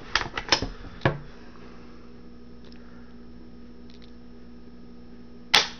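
Unloaded Remington Nylon 66 .22 rifle being dry-fired to show its trigger pull: a few sharp mechanical clicks in the first second, then one loud click near the end, over a steady low hum.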